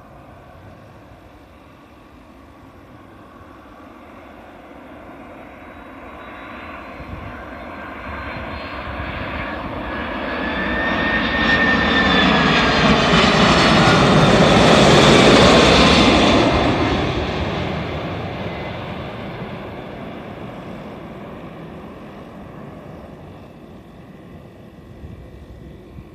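Japan Airlines Boeing 767 passing low overhead on landing approach with its landing gear down. Its two jet engines build to a loud peak about halfway through and then fade away, with high whining tones that slide down in pitch as it goes by.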